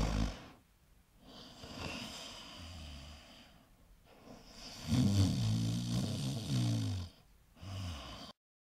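A man imitating snoring: loud, rasping snores with a quieter breath between them, the longest about five seconds in, ending with a short one just before the sound cuts off.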